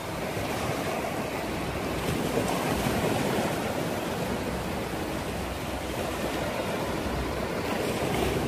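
Small sea waves breaking and washing up a sandy beach, a steady surf wash that swells and eases a little.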